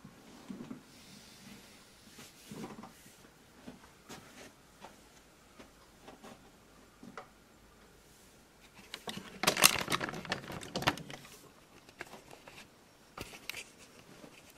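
Handling noises: scattered small knocks and clicks, a louder stretch of rustling and clattering about nine seconds in, then a few sharp clicks as the camera is picked up and moved near the end.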